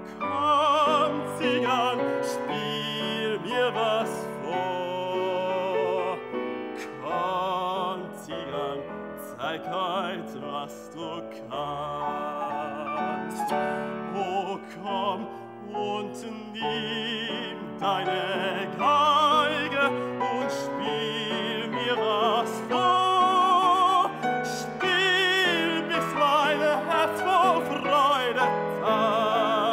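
Baritone singing an operetta aria with vibrato, accompanied by grand piano.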